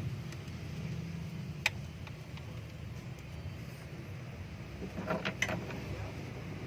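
Car engine idling with a steady low hum. A single sharp click comes about a second and a half in, and a few quick metallic clinks come near the end.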